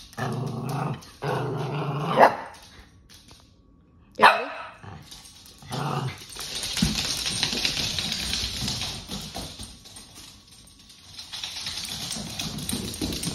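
Small pet dogs barking: two drawn-out, growly barks in the first couple of seconds, then sharp single barks about four and six seconds in. A longer hissing, rustling noise follows.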